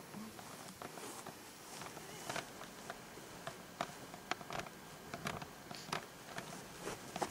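Footsteps walking on a grassy path: soft, irregular steps a few times a second over a faint hiss.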